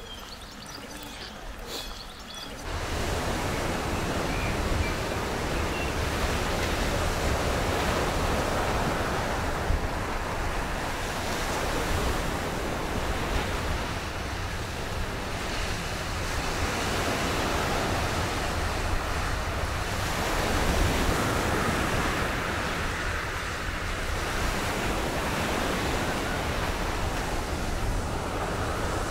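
Sea surf washing onto a sandy beach with wind buffeting the microphone, a steady rushing with a low rumble that swells and eases. It comes in abruptly about three seconds in, after a faint, quieter stretch.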